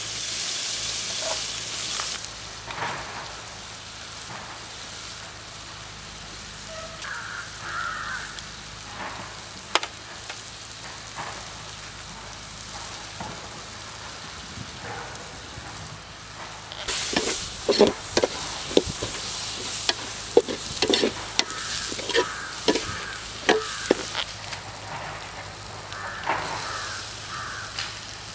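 Food sizzling in a hot pan while being stirred, a metal utensil scraping and knocking against the pan. The sizzle is loud at the start, drops back, then swells again past the middle with a quick run of knocks.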